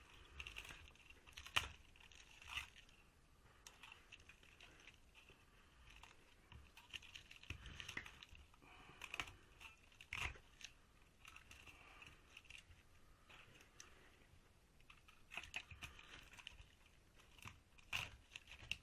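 Faint scraping, crinkling and scattered sharp clicks of copper winding wire being pulled and handled out of a washing machine motor's stator.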